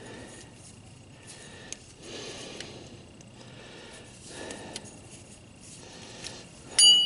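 Quiet handling of tools and parts with a few small clicks, then one sharp metallic clink that rings briefly near the end, like a wrench or other metal tool striking metal.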